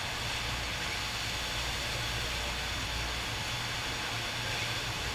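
Steady rush of water from a FlowRider sheet-wave machine, a thin sheet of water pumped up over the ride surface, with a low steady hum underneath.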